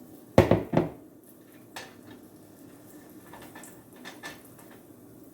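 Kitchen utensil clattering against cookware while pancake batter is being dished out: two loud knocks close together about half a second in, then a few light taps.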